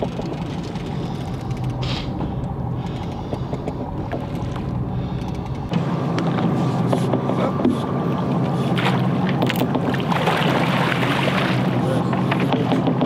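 Charter boat's engine running steadily, with water and wind noise over it; the sound steps up louder about six seconds in.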